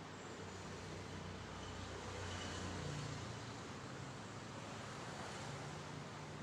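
Steady room noise: a low hum under an even hiss, swelling slightly midway, with no distinct event.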